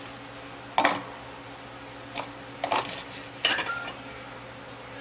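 Dishes and utensils clinking and knocking: about four short sharp knocks, the loudest about a second in.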